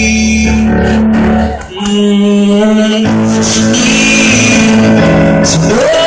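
Live pop band playing an instrumental stretch between vocal lines: held guitar and keyboard chords over bass, loud on a phone microphone, with a sung note sliding up near the end.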